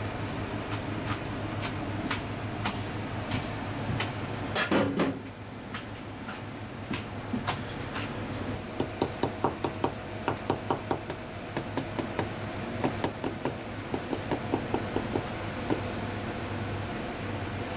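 Kitchen knife chopping herbs on a white plastic cutting board: quick even strokes, about three a second, through the second half. A louder knock comes about five seconds in, over a steady low hum.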